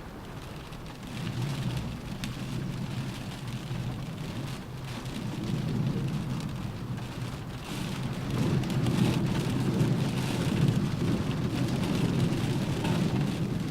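Rain falling on a car roof, a steady patter with many small drop ticks, under a low rumble that swells about a second in and again, louder, around eight seconds.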